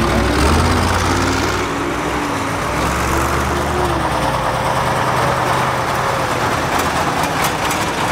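Heavy military vehicle engines running as a BRDM-2 armoured scout car and then a Ural army truck drive past, the engine note shifting up and down with the revs. A few light clicks come near the end.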